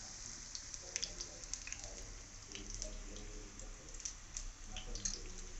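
Unniyappam batter balls deep-frying in hot oil in an appe pan: a steady low sizzle with many small irregular crackles and pops.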